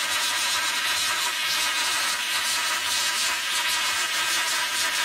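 Plasma cutter torch cutting through thick steel: a steady, unbroken hiss of the cutting arc and air jet.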